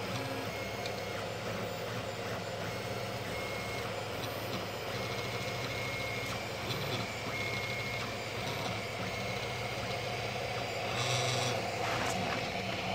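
Aurora I3 3D printer running a print: its stepper motors sing in short high tones that start and stop as the print head moves, over a steady fan hum. There is a brief louder rush about eleven seconds in.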